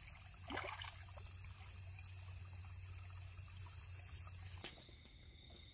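Faint trickling and splashing of shallow creek water as hands scoop and wash in it, with a brief louder splash about half a second in, over a steady high-pitched insect chorus. Both sounds stop abruptly near the end.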